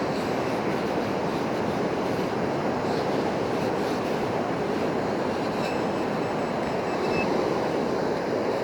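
Steady rushing wash of surf on the beach. A metal detector's thin, high-pitched target tone sounds for about a second and a half around six seconds in.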